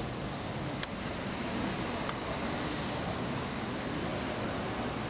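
Steady outdoor background noise of a busy town square, a wash of traffic and people, with two faint clicks about one and two seconds in.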